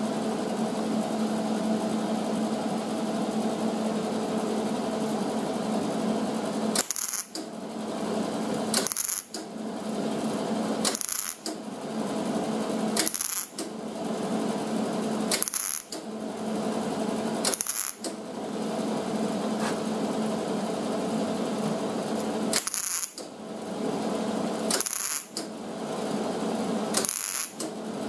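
MIG welder arc crackling and buzzing as short welds are laid along an overlapping sheet-metal lap seam. One unbroken run of about seven seconds is followed by a string of welds of roughly two seconds each, with a short break and a brief high hiss between them.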